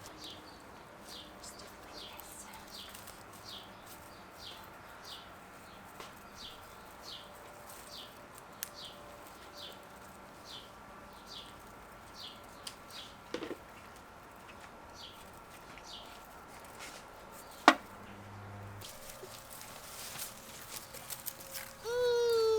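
A bird repeating a short, high, falling chirp about every two-thirds of a second, with one sharp click about three-quarters of the way through.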